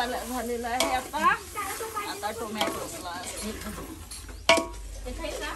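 A metal ladle stirring mutton and tomatoes in a large metal pot over a wood-fired chulha, the curry sizzling and the ladle scraping through it. About four and a half seconds in, the ladle gives one sharp clank against the pot.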